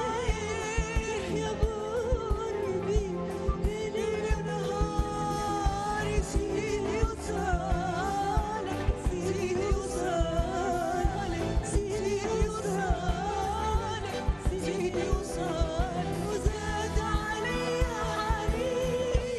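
Two women singing an Arabic song as a live duet, with an orchestra accompanying and a steady percussion beat.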